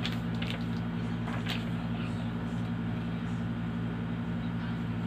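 A steady low machine hum fills the room, with a few faint scratches of a felt-tip marker writing on paper, near the start and about one and a half seconds in.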